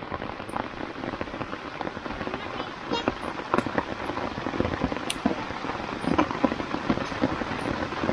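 Heavy rain falling: a steady hiss with many sharp ticks of drops striking close by.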